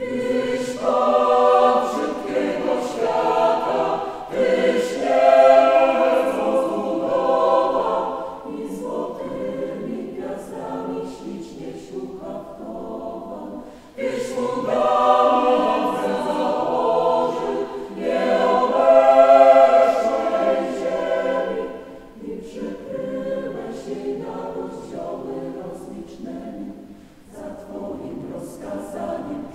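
Mixed choir of women's and men's voices singing unaccompanied. The voices enter together at the start and sing in long phrases that swell and fall back, with a brief break about halfway through before the next phrase.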